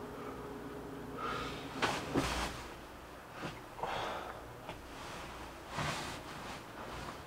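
A man's short, sharp breaths and sniffs, several in a row, with rustling of bedding and clothing.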